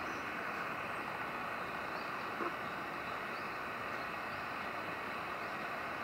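Steady background noise with faint, short, high chirps about once a second and a single click about two and a half seconds in.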